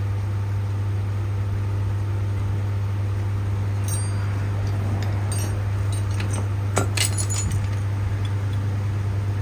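Small metal tools and engine parts clinking a few times as they are handled, with a cluster of clinks about seven seconds in, over a steady low hum.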